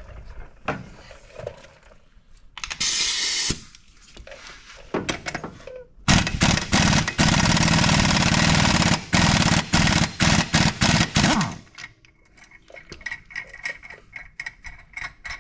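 Pneumatic impact wrench hammering on the 22 mm primary clutch bolt of a Can-Am Maverick X3 to break it loose: a short burst about three seconds in, then about five seconds of hammering with a couple of brief breaks. Light metallic clinks follow near the end.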